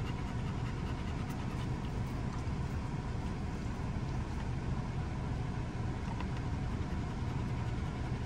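Steady low drone of an idling engine, even and unbroken, with a faint steady tone above it.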